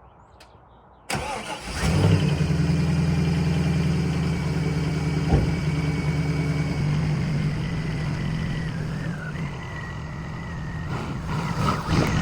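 1998 Pontiac Trans Am's LS1 V8 cranking and catching about a second in, then idling steadily on a cold start, with a light engine tick that the owner says goes away once it warms up.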